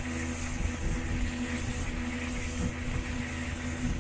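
Motorboat engine running steadily at speed, with the rush of the churning wake and wind on the microphone.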